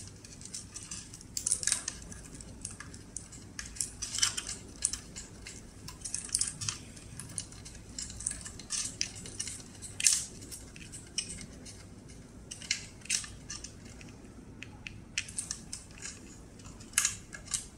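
Irregular small clicks and rattles of plastic wire connectors and cables being handled and pulled out of an electric scooter's deck compartment, the sharpest click about ten seconds in.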